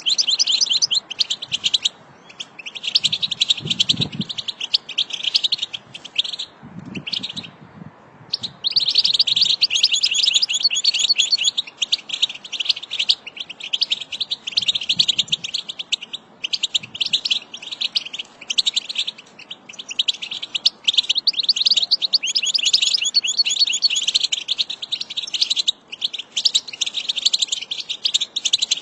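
European goldfinch singing: a fast, continuous twittering of high notes, broken by a few brief pauses.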